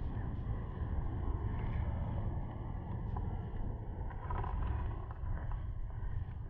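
Steady low rumble of wind buffeting the microphone, with a few faint brief sounds mixed in.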